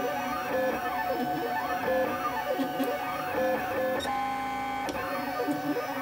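3D printer's stepper motors whining in rising and falling pitches as the print head and bed speed up, slow down and change direction, with a steady held tone for about a second near the end during a longer straight move.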